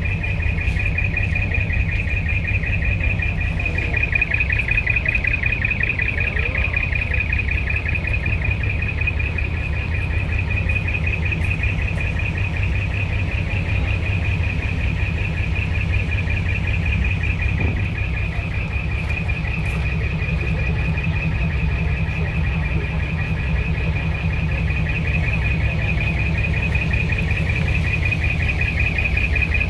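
Large truck's diesel engine idling with a steady low rumble, and a steady high-pitched trilling whir running over it.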